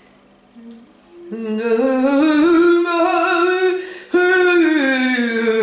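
A woman singing scat improvisation with long held notes into a handheld microphone. About a second in, a note rises and is held, then just after four seconds a new note comes in and slides slowly down.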